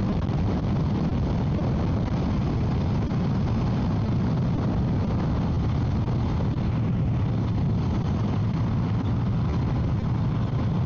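Motorcycle cruising at steady speed, heard from the rider's own microphone as an even rush of wind and road noise over a low engine drone.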